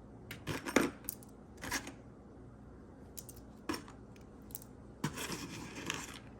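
Small pieces of jewelry clinking and rattling as they are picked through by hand: scattered light clicks, then a longer rustling scrape about five seconds in.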